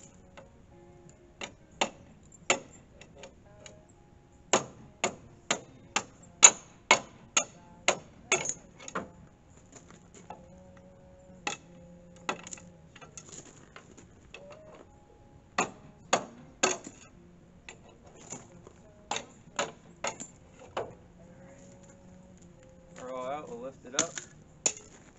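Hand hammer striking steel on a skid steer's front attachment plate, knocking at the worn pins and bolts, in quick runs of sharp ringing blows, about three a second, with pauses between the runs.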